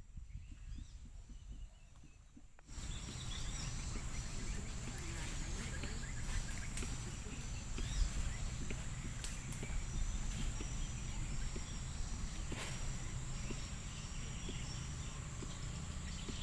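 Crickets and other insects chirping in a steady high drone over a low rumble, the whole ambience jumping louder about three seconds in, with a few sharp clicks later on.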